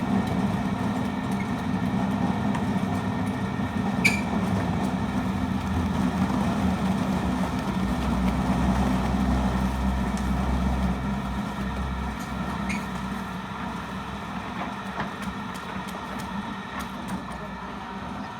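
An engine running steadily, its deep rumble swelling near the middle and then easing off, with a sharp metallic click about four seconds in.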